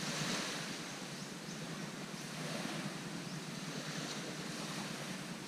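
Gentle surf: small waves washing onto a sandy beach as a steady hiss, a little louder near the start.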